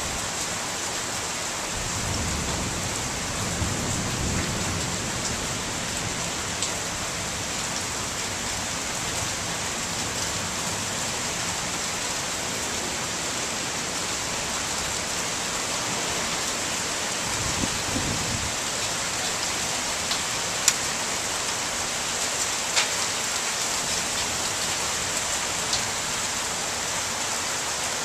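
Heavy rain pouring steadily, with a few sharp ticks of drops hitting a nearby surface. Low rumbles of distant thunder come about two seconds in and again around eighteen seconds.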